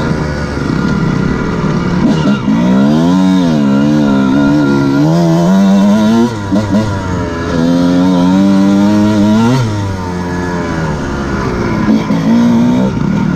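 Dirt bike engine revving hard as it is ridden, its pitch climbing and falling with the throttle and gear changes. The revs drop sharply about six seconds in and again near ten seconds, when the throttle is chopped.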